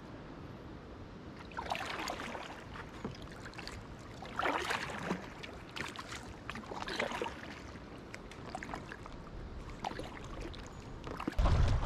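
Double-bladed paddle strokes in a packraft: the blades dip and splash in calm river water about every two and a half seconds. Near the end a sudden low rumble of wind buffets the microphone.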